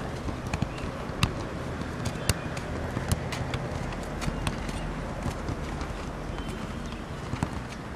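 A football being struck over and over, sharp taps and thuds at an uneven pace, as the ball is juggled on the head, over a steady low outdoor rumble.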